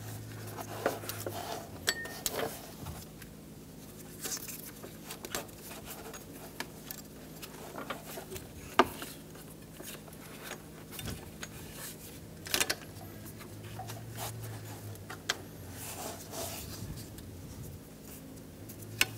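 Gloved hands working a rubber serpentine belt onto engine pulleys: soft rubbing with scattered light clicks and taps, over a faint steady low hum.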